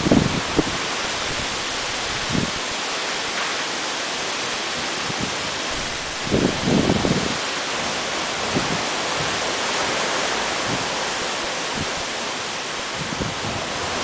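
Typhoon rain pouring steadily in strong wind, a dense even hiss. Gusts buffet the microphone with low blustery bursts at the very start and again about six to seven seconds in.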